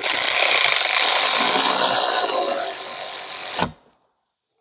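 Cordless electric ratchet spinning a socket on an extension to run down and tighten a rear brake caliper bolt. It runs without a break for about three and a half seconds, drops in level after about two and a half seconds as the bolt seats, then cuts off.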